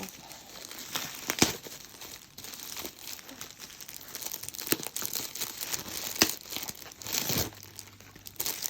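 Bubble wrap and plastic packaging being handled and unwrapped: continual crinkling with a few sharp crackles and snaps.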